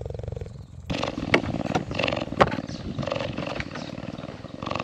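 Cheetah purring: a steady, rapidly pulsing rumble that grows louder about a second in, with a few sharp clicks over it.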